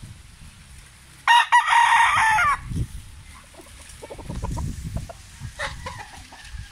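A rooster crows once, a loud crow of a little over a second that drops in pitch at the end.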